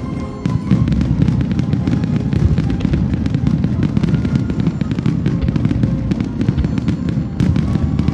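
Aerial fireworks display: a dense, rapid crackling of many small bursts over continuous low booming, with music faintly underneath.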